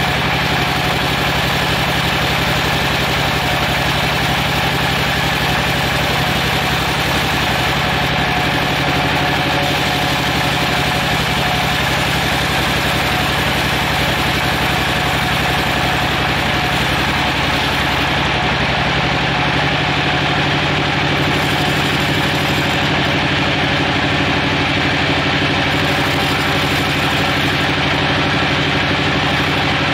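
Large band-saw mill running steadily through a giant teak log: a constant machine hum under the hiss of the blade in the wood. The high hiss thins out in patches in the second half.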